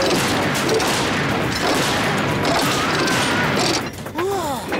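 Cartoon sound effects of conveyor machinery: a loud, dense mechanical clatter and rattle that drops away near the end, where a couple of short sliding vocal cries are heard.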